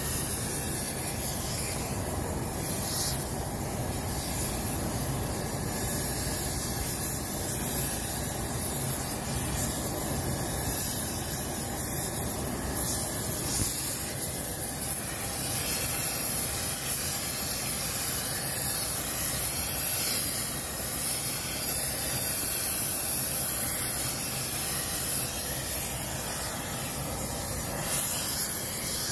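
Gas preheating torch burning with a steady hiss, its flame blowing into the sealed thermite weld mold to heat the rail ends before the weld is poured.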